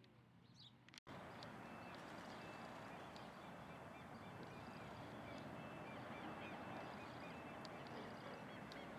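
Small birds chirping with short high calls, faint over steady background noise; the sound cuts out for an instant about a second in, and the noise is louder after the break.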